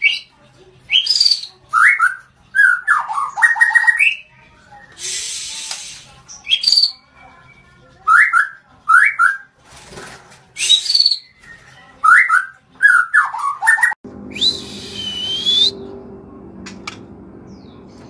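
White-rumped shama singing: loud whistled phrases with quick rising and falling notes and short runs of chattering notes, each phrase about a second apart. About fourteen seconds in, the song stops and a steady low hum starts, with one more loud gliding whistle over it.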